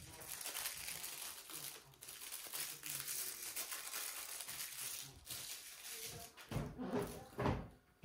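Plastic film crinkling and tearing as imitation crab sticks are peeled out of their wrappers, with a few louder knocks of handling near the end.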